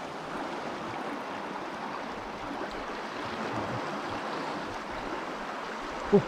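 Steady rushing of river water. A short voice cuts in right at the end.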